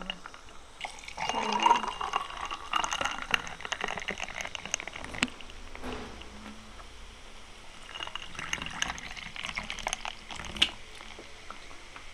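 Cola poured from a plastic bottle into tall glasses of ice, fizzing as it fills, with a few sharp clicks.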